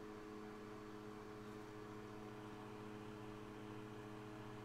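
Faint steady electrical hum, a few unchanging low tones over light hiss: room tone with no other sound.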